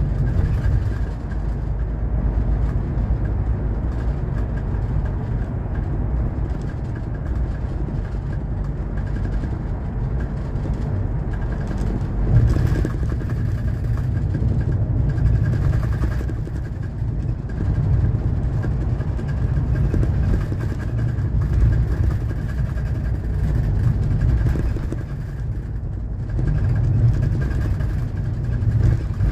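Interior of a highway coach under way: the steady low drone of its engine and rolling road noise, heard from inside the cabin.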